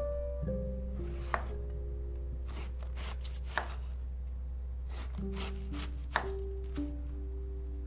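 Chef's knife chopping raw cabbage on a wooden cutting board: a handful of sharp knocks of the blade against the board, a second or more apart, over background music with held notes.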